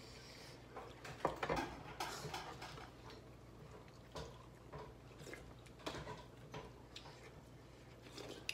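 Spoon and cutlery clinking and scraping against plates and bowls during a meal, in irregular light clicks with a louder clatter about a second and a half in.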